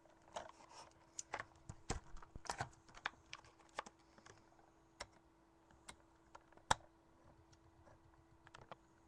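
Scissors snipping and plastic packaging clicking as a sealed package is cut open: irregular clicks and snaps, busiest in the first few seconds, with one louder snap a little past the middle. A faint steady hum runs underneath.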